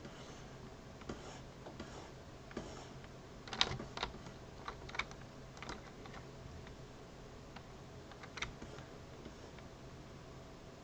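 Keystrokes on a computer keyboard: scattered clicks, with a quick run of them about three and a half seconds in, over a faint steady hum.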